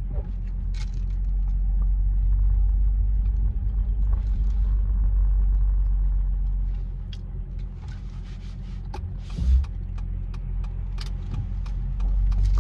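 Steady low rumble of a car driving, with scattered light clicks and a short thump a little past halfway.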